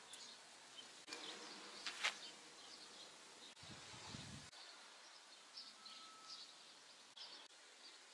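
Quiet garden ambience with a bee buzzing past for just under a second about halfway through, among a few faint high chirps.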